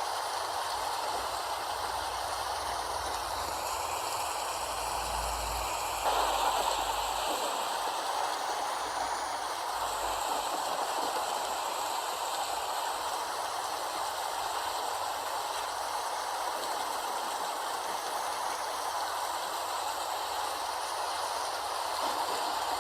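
Steady rain falling in an even hiss, with a sudden swell in loudness about six seconds in that eases back within a couple of seconds.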